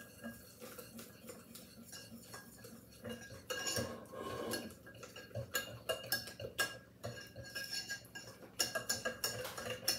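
Wire whisk stirring cocoa powder into melted butter in a glass mixing bowl, the wires scraping and clicking against the glass. Soft at first, then louder and busier with quick clicks from about three and a half seconds in.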